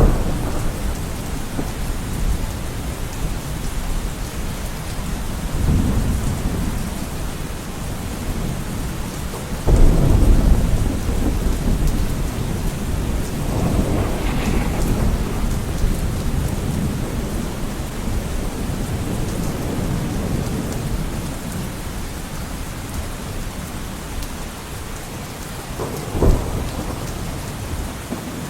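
Steady rain falling, with several low rumbles of thunder; the loudest starts suddenly about ten seconds in, and a short, sharp one comes near the end.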